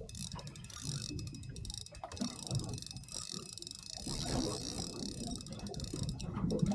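Fishing reel ratcheting with rapid fine clicks, over a steady low rumble.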